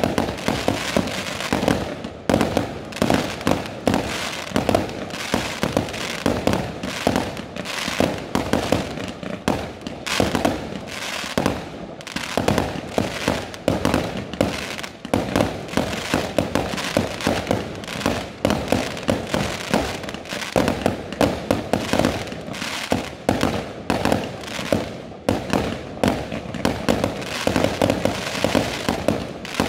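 Fireworks display: a dense, continuous barrage of aerial shells bursting, several loud bangs a second, with no let-up.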